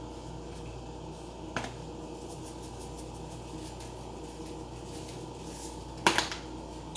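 Seasoning shaker containers being handled over a steady background hum, with a faint click about a second and a half in and a louder sharp click about six seconds in.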